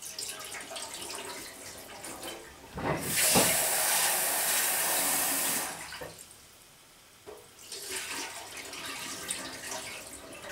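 Rice being rinsed in a rice cooker's inner pot at a stainless steel sink: cloudy rinse water poured off into the sink, then the tap run hard into the pot for about three seconds, the loudest part, to lift the rice dust. About two seconds later the water is poured off again.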